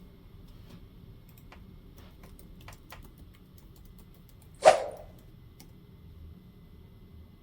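Light scattered clicks and taps from handling board-game pieces and cards, with one short, loud, sharp sound a little past halfway.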